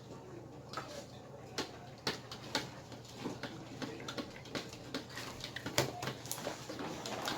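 Slime being worked and squished by hand, giving irregular small sticky clicks and pops, a few each second.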